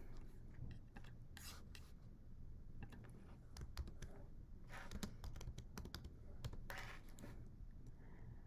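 Faint typing on a computer keyboard: scattered key clicks at an uneven pace as a search query is typed.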